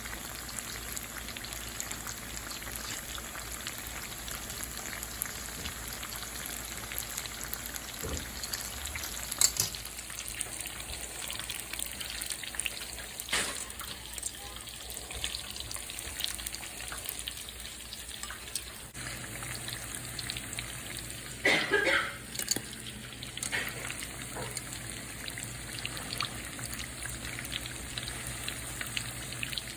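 Tofu cubes deep-frying in hot oil: a steady sizzle with fine crackling, the pieces floating at the surface once done. A few louder knocks come through, and a low hum starts about two-thirds of the way in.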